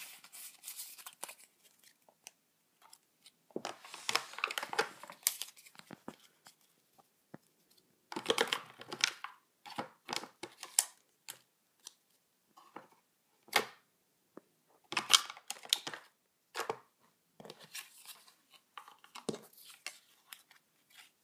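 Yu-Gi-Oh trading cards being handled and sorted onto a wooden table: scratchy sliding and rustling of card stock in several short spells a few seconds apart, with small taps and clicks in between.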